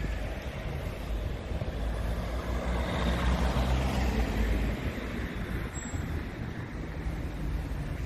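Road traffic: a motor vehicle drives past close by, its engine and tyre noise swelling about three seconds in and fading again.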